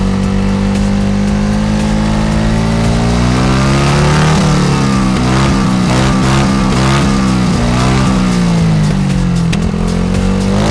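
Honda ADV150 scooter's single-cylinder four-stroke engine running through a GPR Furore Nero aftermarket muffler. It idles steadily for about three seconds, then is revved in a series of quick blips that rise and fall. It eases back near the end and revs up again at the very close.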